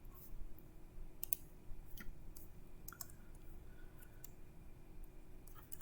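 Irregular, scattered clicks of computer keyboard keys and a mouse, over a faint steady hum.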